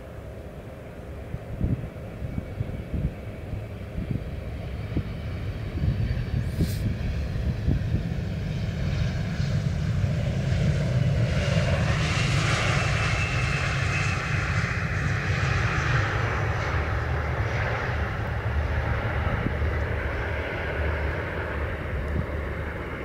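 Twin turbofan engines of a KLM Cityhopper Embraer regional jet on landing, growing louder as it comes in low and passes over the runway. A whining engine tone falls in pitch as it goes by, about halfway through, then settles into a steady rumble as the jet rolls out.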